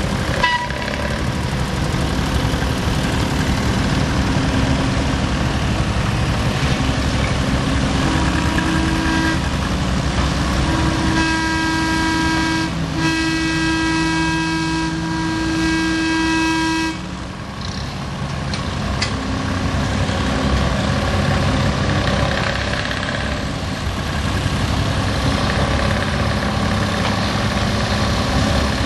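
Small Brookville narrow-gauge 'dinky' locomotive running steadily along the track. Its horn gives a short toot about eight seconds in, then a long blast of about six seconds with one brief break.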